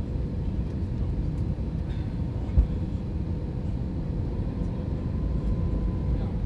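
Steady low rumble of cabin noise inside an Airbus A321-231 on descent, the engines and the airflow over the fuselage blended together, with a faint steady hum above it. One brief low thump comes about two and a half seconds in.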